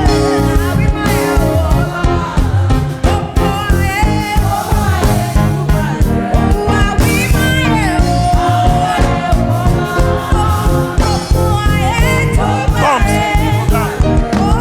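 Live gospel band playing with singing over it: a steady beat of drums and bass under a sung melody.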